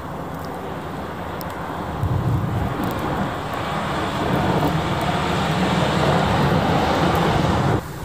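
Snowplow truck approaching and passing close, its engine rumbling under the steady rush of the plow blade pushing and throwing snow along the road. It grows louder from about two seconds in, then cuts off suddenly near the end.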